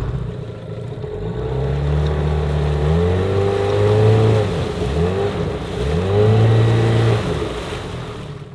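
Small Hangkai outboard motor driving a jon boat under throttle, its pitch climbing about three seconds in, dipping and picking back up twice, then fading away near the end, with the rush of the wake underneath.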